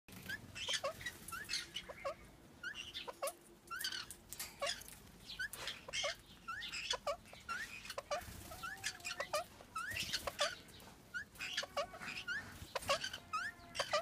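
Indian ringneck parrots calling while mating: a steady run of short, rising chirps and sharp clicks, two or three a second, with a longer wavering note about eight seconds in.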